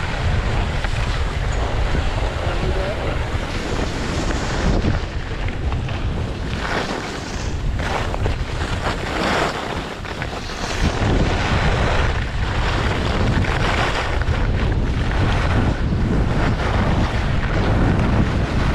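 Wind rushing over the camera microphone while skiing downhill, with skis hissing and scraping over groomed snow in repeated surges.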